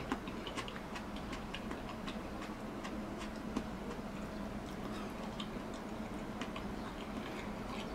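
Quiet eating sounds: small, irregularly spaced clicks and taps of chopsticks, dishes and chewing, over a steady low hum.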